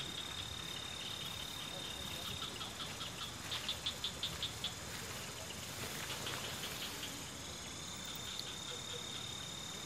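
Crickets trilling in a steady high tone over an even hiss of rain. In the middle, a quick run of louder chirps comes at about six a second and then stops.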